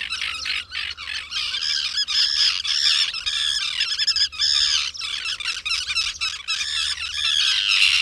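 A group of common terns calling, with many high-pitched calls overlapping one another without a break.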